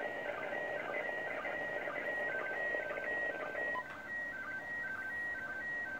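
Slow-scan TV image signal from the International Space Station in PD120 mode, received over 2-metre FM on an ICOM 746PRO: short tones alternating in a regular pattern about twice a second over a hiss of static. These are the last scan lines of the image being sent.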